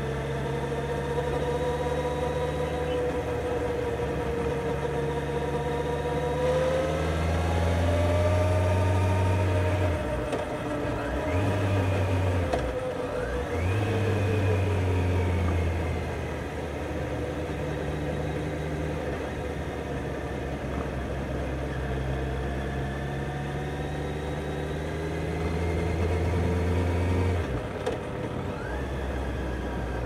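Kawasaki Z900's inline-four engine running while riding, its pitch rising and falling gently with the throttle.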